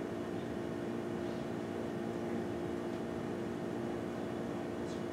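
Steady fan hum: a level drone holding a few constant tones. A faint brief high tick comes near the end.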